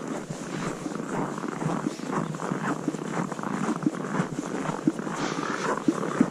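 Boots crunching through dry, very cold snow while walking, an irregular crackling crunch.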